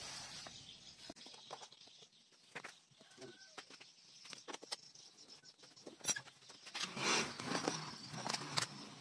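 Scattered light clicks and knocks of hands working the plastic body panels of a Yamaha NMAX scooter while a side cover is being removed, with a louder rasping, rustling stretch about seven seconds in.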